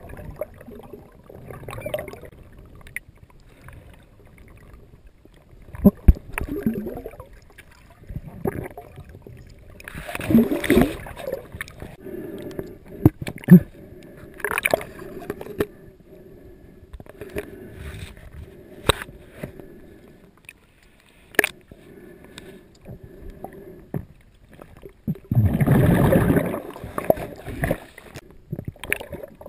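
Muffled underwater sound picked up inside a GoPro underwater housing submerged in a lake: irregular gurgling and bubbling water with scattered sharp clicks, and two louder rushes of water noise, one about ten seconds in and one near the end.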